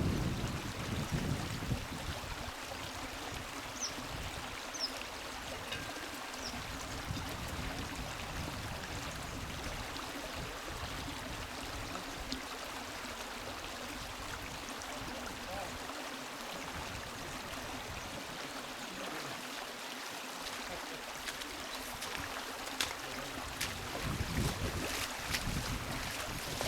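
Rushing river water: a steady, even hiss of a fast-flowing river in flood, with a few faint high chirps a few seconds in.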